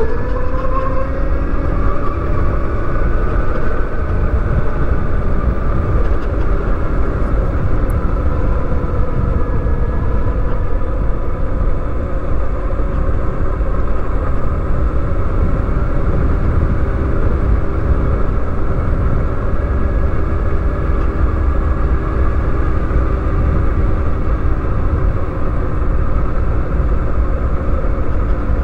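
Wind rumble and road noise from riding a 2020 Zero DSR electric motorcycle, over the electric motor's whine. The whine rises in pitch through the first second as the bike speeds up, then holds steady at cruising speed.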